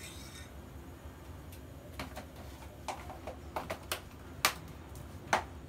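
A metal spoon clinking and tapping against a stainless-steel pot while cocoa powder is spooned in. About ten short, light clicks come scattered from about two seconds in, the two loudest near the end.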